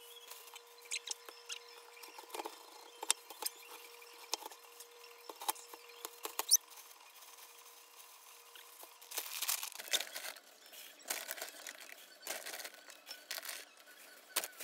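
Plastic bags crinkling and rustling as kimchi fried rice is portioned, with loose rice pattering into a bag in denser bursts in the second half. A faint steady hum underlies the first half.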